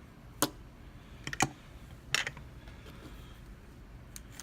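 A few sharp clicks and knocks of small hard parts being handled, as a euro cylinder lock and its holder are turned around. There are three loud clicks in the first half, then a few faint ticks near the end.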